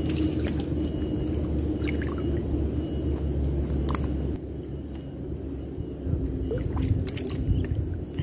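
A motor running with a steady low hum under a noisy wash of sound, dropping lower about four seconds in, with a few faint clicks.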